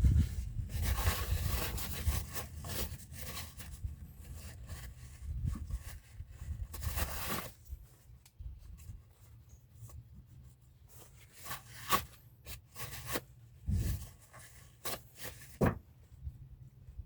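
Scraping and rubbing of hand work on brake parts in two longer stretches, followed by several sharp clicks and knocks near the end.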